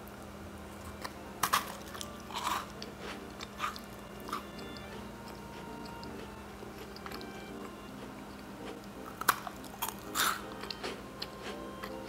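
Biting and chewing a crisp microwave-baked chocolate chip cookie: crunches come in two clusters, about one and a half to two and a half seconds in and again around nine to ten seconds in, with a few lighter crunches between and after.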